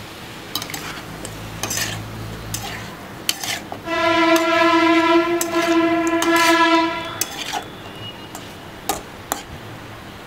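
Metal spatula knocking and scraping in a metal kadai as raw chicken pieces are stirred. A steady horn blast lasting about three seconds sounds from about four seconds in and is the loudest sound.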